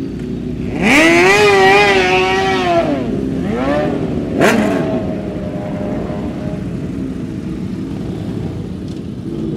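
Motorcycle engines running as a column of bikes rolls past, with a steady low rumble. About a second in, one engine is revved hard, held high for about two seconds and dropped back, followed by shorter revs around four seconds in.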